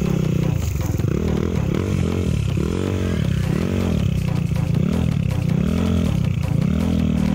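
Enduro motorcycle engine revving up and dropping back over and over, roughly once a second, as the throttle is worked on rough ground.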